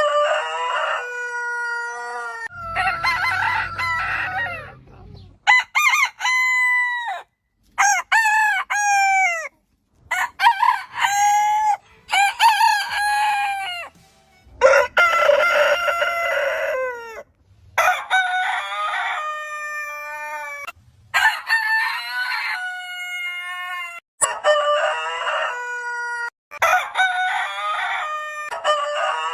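Roosters crowing one after another, about ten crows in all, each a long pitched call that rises and then holds. The birds differ in pitch, and the crows are divided by abrupt cuts.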